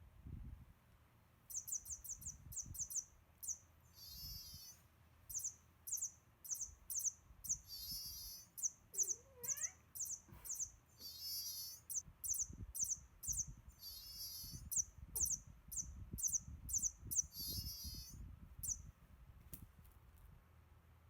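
Battery-powered squeaking toy mouse giving rapid, very high-pitched electronic squeaks in fast series and warbling clusters, set off by vibration as it is jostled. A short rising meow-like cry sounds about nine seconds in, over soft knocks of the toy being batted about.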